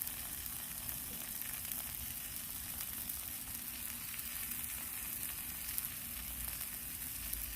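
Chicken thighs sizzling steadily on a Blackstone flat-top griddle, a continuous frying hiss with fine crackle.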